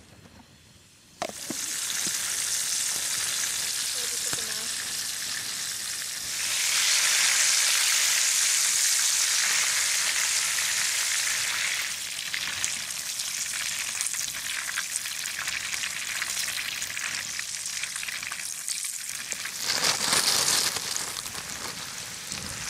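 Flour-coated fish frying in hot oil in a pan, with a steady sizzle that starts suddenly about a second in. The sizzle grows louder from about six seconds in to about twelve, then settles.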